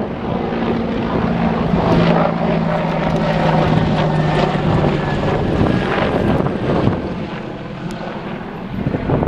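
Propeller airplane flying low overhead, its engine making a steady drone that eases off in the last few seconds, with wind on the microphone.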